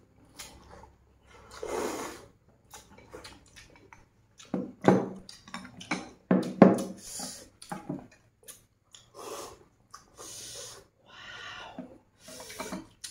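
Close-up eating sounds: noodles slurped from bowls, then chewing with wet mouth smacks and sharp little clicks, in a string of short separate noises.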